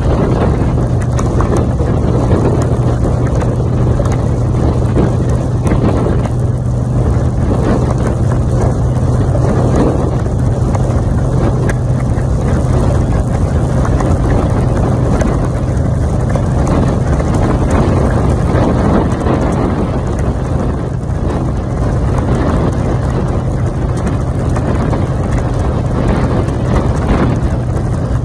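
Motorcycle engine running steadily at highway cruising speed, with a constant low drone and wind rushing over the microphone.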